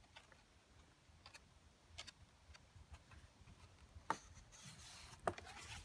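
Faint handling sounds of a large mixed-media art journal: a few light taps and clicks, then about four seconds in a sharp click followed by a brief paper rustle as a page is turned.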